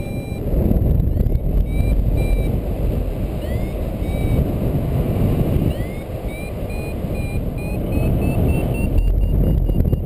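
Wind noise on the microphone of a paraglider in flight, with a variometer beeping over it: short high beeps and a couple of quick upward chirps, then from about six seconds in a run of beeps that slowly rise in pitch, the vario's signal of climbing in lift.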